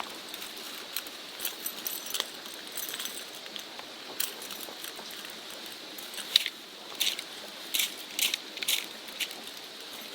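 Light clinks and rattles of small hard camping gear being handled and packed away, in scattered bursts that come more often in the second half.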